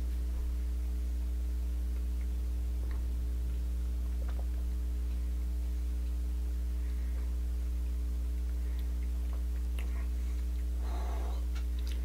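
Steady low electrical hum with several faint higher overtones, a few faint small clicks scattered through it, and a soft breathy noise near the end.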